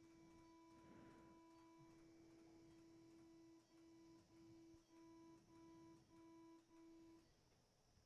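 Radiofrequency ablation generator sounding its tone through a balloon-catheter ablation cycle. It starts as a steady tone, then breaks into a run of about six quick beeps, roughly two a second, and stops as the energy delivery finishes.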